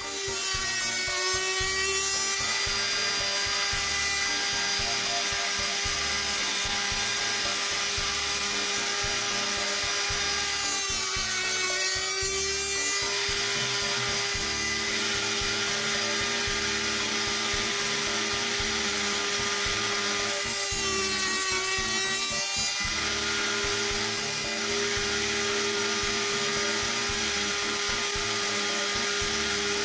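Homemade miniature gear-cutting machine running, its small spindle motor giving a steady high whine. About every ten seconds the cutter bites into the brass gear blank for a couple of seconds as another tooth is cut, and the sound changes with a sweeping rise and fall.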